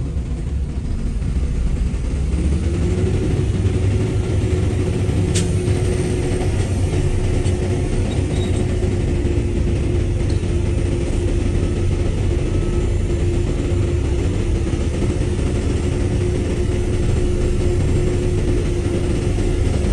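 Heavy diesel earthmoving machinery running steadily with a deep rumble. A steady whine joins about two and a half seconds in, and there is one sharp click around five seconds in.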